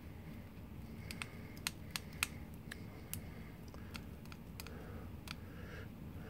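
Faint, irregular small clicks and ticks of hands wrapping tying thread with a bobbin on a fly-tying vise, over a low steady hum.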